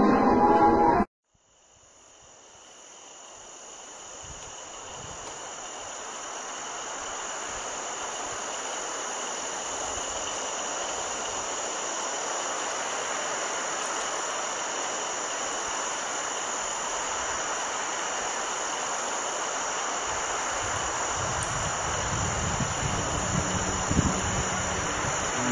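Music cuts off about a second in. After a moment of silence, a steady hiss with a continuous high-pitched whine fades in over several seconds and holds. A low rumble grows in near the end.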